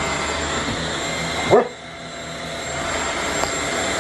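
A cordless stick vacuum runs steadily with a high whine. About a second and a half in, a young Australian Shepherd gives one sharp, excited bark at it. Just after the bark the vacuum sound dips briefly, then builds back up.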